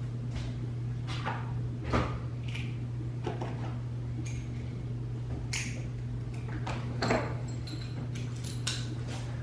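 Household handling noises: scattered knocks and clicks of doors and objects being moved, two louder knocks about two and seven seconds in, over a steady low hum.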